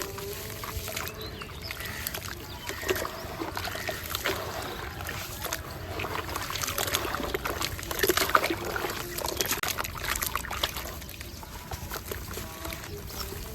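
Small chunks of concrete crumbling and breaking apart in water: a dense run of crackles and small trickling splashes, busiest in the middle.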